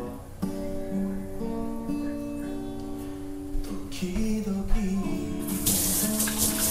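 Background music with strummed acoustic guitar. Near the end a kitchen tap starts running, a steady hiss under the music.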